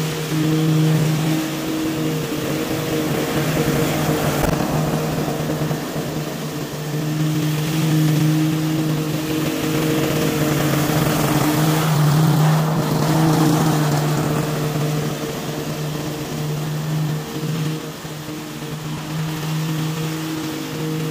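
Toro TimeMaster walk-behind lawn mower running steadily while cutting grass. It grows louder as the mower comes close, about midway, then fades as it moves away.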